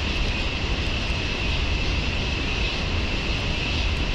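Steady background noise: a constant low rumble with a steady high hiss over it, and no distinct events.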